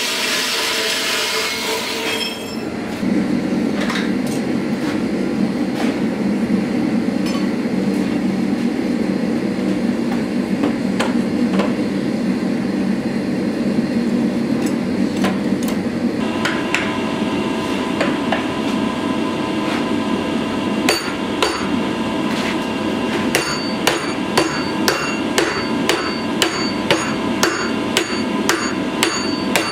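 Hammer striking red-hot steel clamped in a vise: sharp ringing blows, about two a second, in the last several seconds. Before that, a gas forge burns with a steady roar while the steel heats. At the start, a mechanical power saw cuts steel plate with a hiss that stops suddenly.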